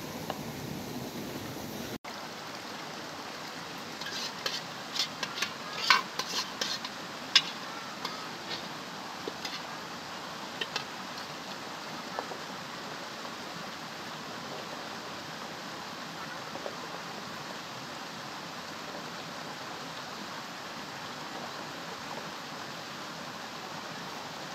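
A metal ladle stirring a thick white mixture in an aluminium pot, clinking and scraping against the pot in a quick cluster of knocks, then a few scattered clinks, over a steady rushing background noise.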